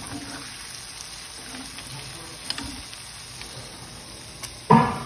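Hot oil sizzling steadily around deep-frying paneer balls, with a few light clicks of a metal slotted spoon. A brief, louder sound comes near the end.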